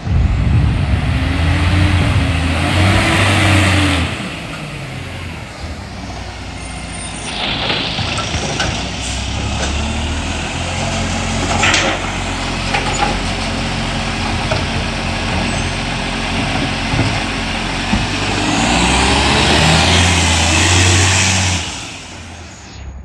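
Diesel garbage truck engine with an exhaust leak, giving an unusual note. It revs up and down at the start and again near the end, and runs more steadily in between. A short hiss comes about halfway through.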